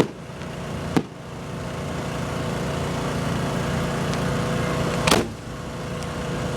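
Fireworks going off at close range: a sharp bang right at the start, another about a second in and a third about five seconds in. Under them runs the steady drone of a running generator.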